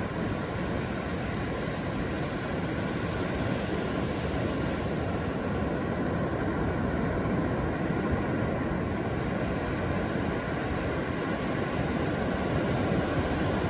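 Steady, low rushing of surf and wind on the coast, with no break or change.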